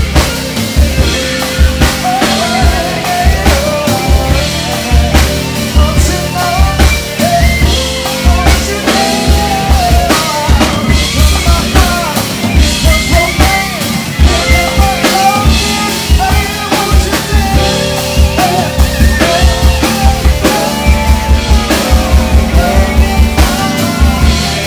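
Live band playing an R&B song, led by a drum kit with a steady kick drum, snare hits and cymbals, with a melody line over a bass part.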